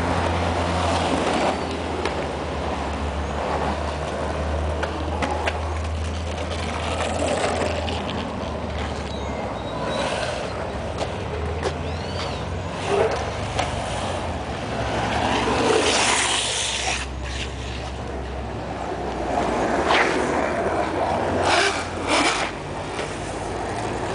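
Longboard wheels rolling and sliding on asphalt: a steady low rumble with several louder scraping hisses from slides, the loudest about 16 seconds in and more around 20 and 22 seconds.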